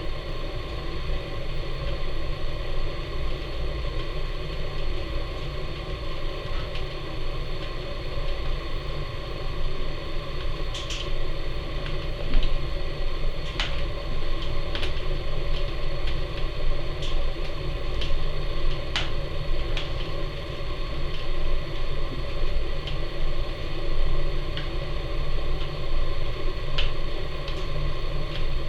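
Wood fire of aspen and fir/spruce burning in the firebox of a Napoleon model 150 wood-fired furnace, a steady draft rumble with scattered sharp crackles and pops, most of them between about 11 and 27 seconds in.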